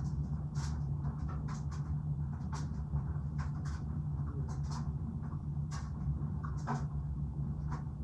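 Gas clothes dryer running with its load tumbling: a steady low hum with light, irregular clicks and ticks several times a second.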